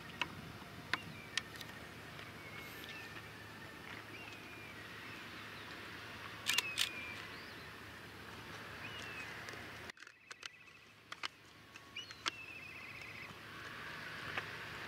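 Faint outdoor ambience with a low steady rumble, scattered short high chirps, and several sharp clicks, the loudest pair about six and a half seconds in. The background drops away suddenly at about ten seconds.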